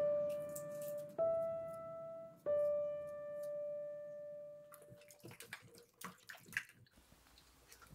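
Soft piano background music: single held notes struck about once a second, dying away about five seconds in. After that come faint, irregular splashes and clicks of a hand moving vegetables about in a steel bowl of water.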